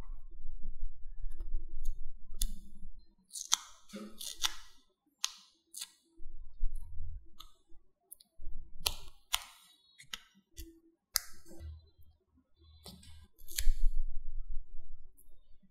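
Metal tweezers clicking and tapping against a glossy paper cutout as small paper stickers are picked off and pressed down, with soft rubbing and rustling of the paper under the fingers. The clicks come singly at irregular moments, about a dozen in all.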